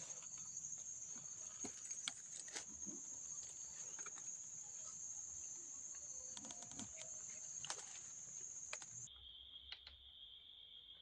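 Steady high-pitched drone of forest insects, with scattered faint clicks and rustles. About nine seconds in it cuts abruptly to a lower-pitched insect drone.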